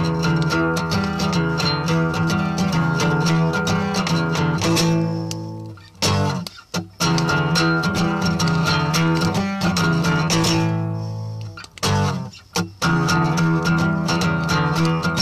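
Acoustic guitar strummed with full chords. Twice the strumming stops and the chord rings out and fades, then a couple of single strokes are played before the strumming picks up again.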